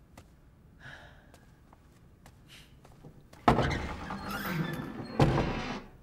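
Heavy wooden lattice doors banging, with a loud thud about three and a half seconds in, a rattling scrape, and a second bang a little under two seconds later.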